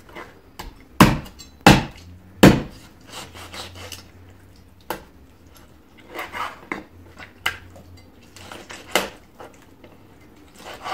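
Kitchen knife chopping and trimming raw chicken on a wooden cutting board: irregular knocks of the blade on the wood, three loud ones in the first few seconds, then softer cuts and scrapes.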